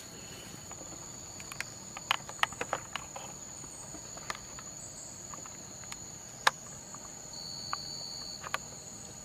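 Steady high-pitched drone of forest insects, with scattered faint clicks and one sharp click about six and a half seconds in.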